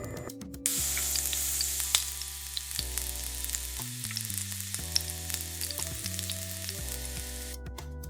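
Food sizzling and frying in a hot pan, a steady hiss with scattered sharp crackles and pops, starting suddenly under a second in and stopping shortly before the end. Soft background music runs underneath.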